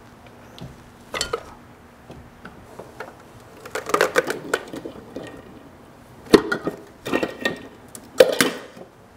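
Scattered metallic clanks and knocks as a round air cleaner assembly, with its chrome lid and filter element, is worked loose and lifted off the carburetor of a Chevy small-block 350. The sharpest knock comes about six and a half seconds in.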